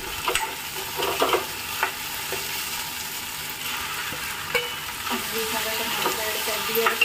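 Onions sizzling in hot ghee in a metal kadhai, with a spoon knocking and scraping against the pan. Chopped tomatoes are tipped in from a steel plate a few seconds in and stirred through the frying onions.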